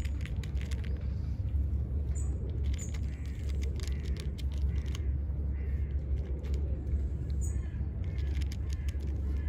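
A cat crunching dry kibble, a quick irregular run of small crunches, over a steady low rumble. A few brief high chirps come about two seconds in and again about seven and a half seconds in.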